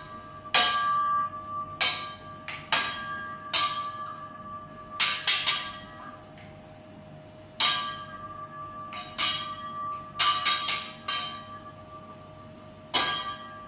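Steel teppanyaki spatula and fork clanging against each other and the griddle in a show routine: about fifteen sharp, irregularly spaced metallic strikes, some in quick runs of two or three, each leaving a bell-like ring.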